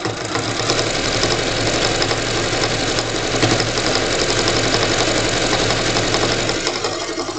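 Electric sewing machine stitching a seam at a fast, steady speed, its needle going in a rapid even rhythm, easing off near the end as the seam of pieced quilt scraps is finished.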